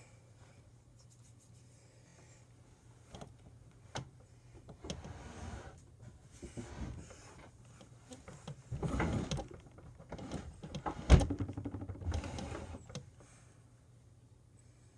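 Objects being handled close by: rustling and scraping in irregular bursts with a few sharp knocks, the loudest about eleven seconds in, over a faint steady hum.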